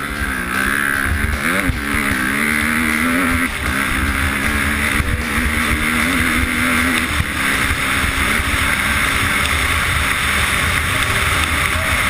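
Dirt bike engine running hard at racing speed, its pitch rising and falling with the throttle over the first few seconds, then holding steadier, with wind rush over the microphone.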